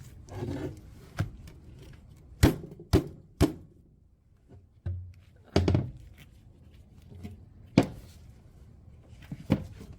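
A cordless right angle impact wrench and its battery being handled and set in place, making a string of separate sharp knocks and clacks, with a few quieter rustles between them; the wrench is not running.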